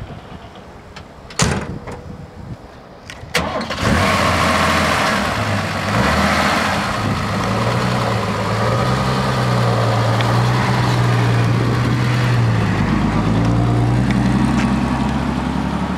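Two sharp clicks, then the 1964 Mercedes-Benz 230SL's straight-six engine starts just under four seconds in and runs steadily, rising briefly in pitch soon after it catches.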